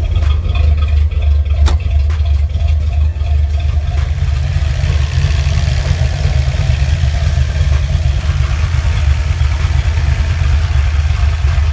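Fox-body Ford Mustang's 5.0 V8 idling steadily with the air conditioning on. An airy rush of blowing air grows louder from about four seconds in, with a few light clicks near the start.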